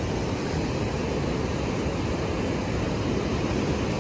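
Wind buffeting the microphone over the steady rush of breaking surf.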